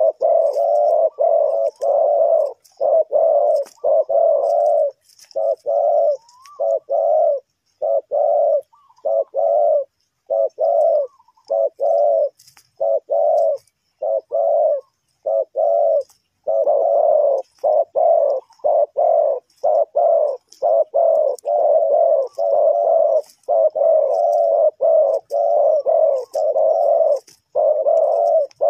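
Spotted doves cooing: a fast, dense run of repeated short coos that thins out briefly through the middle before becoming steady again.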